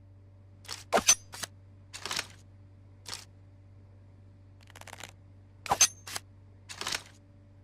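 Tanto dagger being handled: a string of short scraping swishes, broken by sharp metallic clicks about a second in and again near six seconds, each click leaving a brief high ring.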